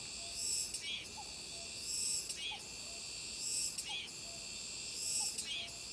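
Summer cicadas singing: a steady high buzz that swells into a louder phrase about every second and a half, each phrase ending in a short sweep.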